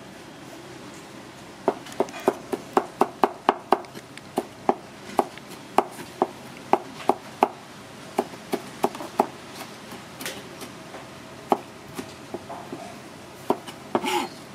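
Chef's knife cutting red chilies into thin strips on a cutting board, each stroke a sharp tap of the blade on the board. A quick run of cuts starts about two seconds in at four or five a second, then the cuts slow and space out, with a longer, scraping stroke near the end.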